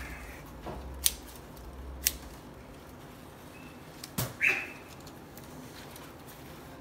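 Palm-leaf strips clicking and rustling as they are bent and pulled through a weave: two sharp clicks about a second apart, then another click and a short high squeak a little past the middle.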